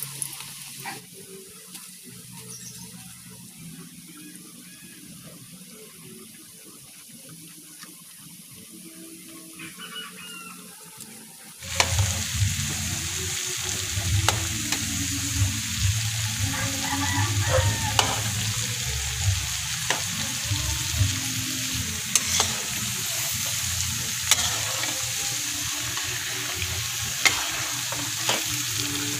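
Bananas coated in sugar deep-frying in hot oil in a metal wok, a steady sizzling bubble, with a metal spatula scraping and clicking against the pan as the pieces are turned. About twelve seconds in the sizzle suddenly becomes much louder, and the spatula knocks come often after that.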